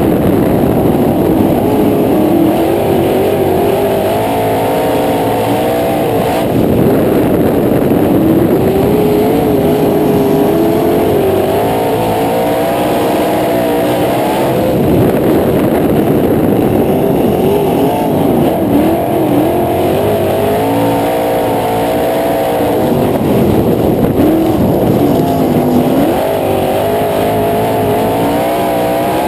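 Sprint car engine heard onboard at racing speed, its pitch climbing on the straights and dropping as the throttle is lifted for the turns, over and over as it laps a dirt oval.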